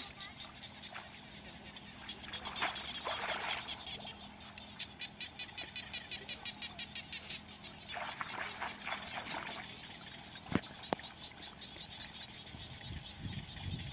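Rapidly pulsed animal calls, about seven pulses a second, in trains lasting a few seconds, most likely frogs calling in the countryside. Two sharp clicks come about ten and a half seconds in.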